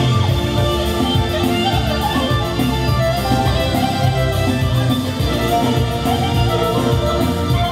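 Live clarinet and a large double-headed bass drum beaten with a stick, playing lively dance music with a steady drum beat under the clarinet melody.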